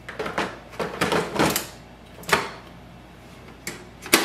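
Plastic knocks and scrapes as a toner cartridge is slid back into a Pantum P2507W laser printer, then the printer's top cover is closed with a sharp click near the end.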